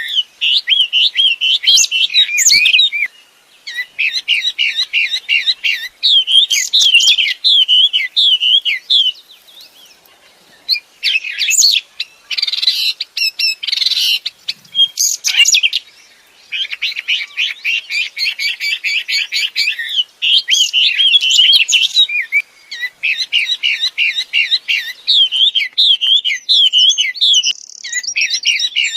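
Wambi songbird singing busily: phrase after phrase of fast, rattling strings of high notes mixed with warbling notes, broken by short pauses, with a harsher, scratchier passage about halfway through.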